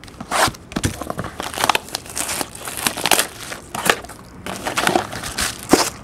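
Plastic shrink wrap crinkling and crackling in irregular rustles as it is cut and pulled off a cardboard box of trading cards.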